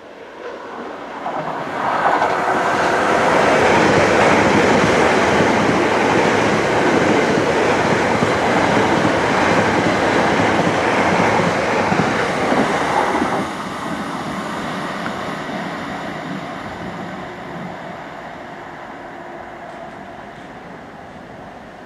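A Greater Anglia Class 720 Aventra electric multiple unit passing through a station: the rail noise rises as it approaches, holds as a loud steady rush of wheels on track for about ten seconds while the carriages go by, drops suddenly as the last carriage passes, then fades away.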